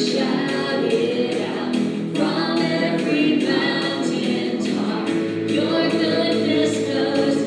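A group of voices singing a contemporary worship song over accompaniment with a steady beat.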